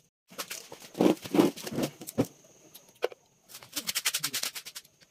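A phone camera being handled and set down on a concrete floor: knocks, rubbing and scraping against the microphone, with a fast rattling run of clicks about three and a half seconds in.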